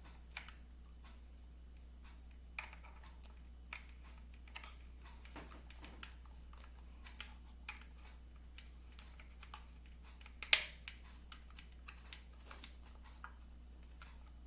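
Faint, irregular clicks and taps of hard plastic toy parts being handled as small gun pieces are pressed into the sockets of a plastic Stridor toy horse, with one louder click about ten and a half seconds in.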